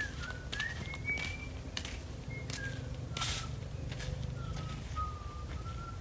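A person whistling a meandering tune of short, clear notes that slide up and down, drifting lower toward the end. A few footsteps crunch on dry leaves and sand.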